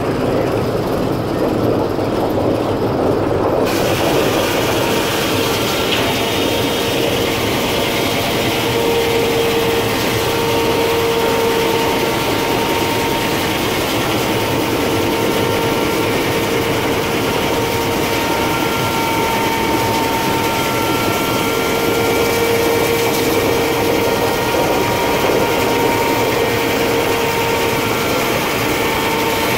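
Steam-powered sawmill running, its circular saw blade cutting through a log: a steady, loud mechanical din with a sustained whine from the blade. A higher hiss joins about four seconds in, as the cut gets going.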